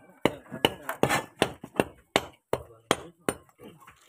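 A hard tool striking repeatedly, about a dozen sharp blows at roughly three a second.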